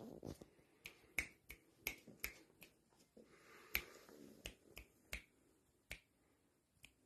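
Fingers snapping over and over to call a cat, a dozen or so sharp snaps at an uneven pace.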